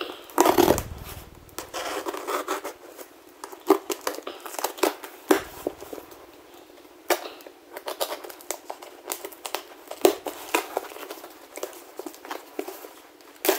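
Clear packing tape on a cardboard box being slit with a knife and pulled, crinkling and tearing, with cardboard rustling and knocking under the hands: an irregular run of sharp scrapes and clicks, loudest about half a second in.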